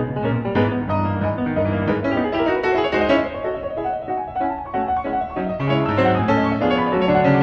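Background piano music: a steady run of notes over a low bass line.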